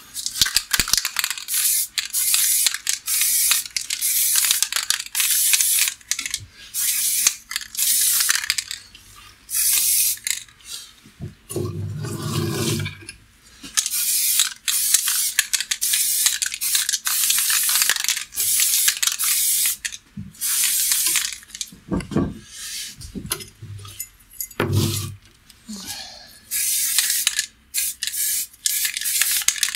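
Aerosol spray-paint can hissing in repeated bursts, short and long, as the nozzle is pressed and released pass after pass to coat the piece in black paint. A few low knocks come between the bursts, around the middle.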